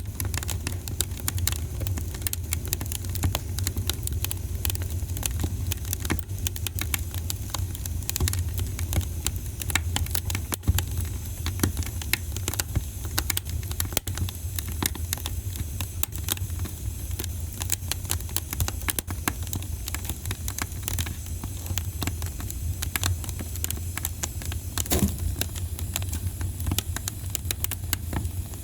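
Fire crackling in a fireplace: dense, irregular snaps and pops over a steady low rumble, with one louder pop near the end.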